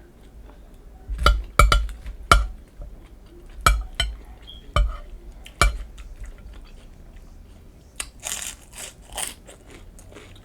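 A utensil clinking and knocking against a plate about six times, then a few seconds of crunching as nacho chips are bitten and chewed near the end.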